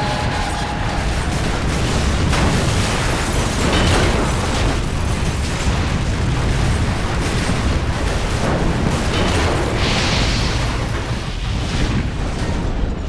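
Airplane crash sound effect: a continuous heavy explosion rumble with louder blasts about two, four and ten seconds in. A high whine dies away in the first second.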